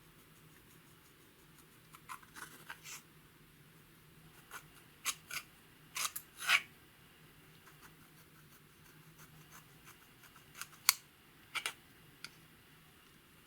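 Clear slime being kneaded and stretched by hand, giving irregular sticky clicks and small pops in short clusters. The loudest pops come about six and eleven seconds in.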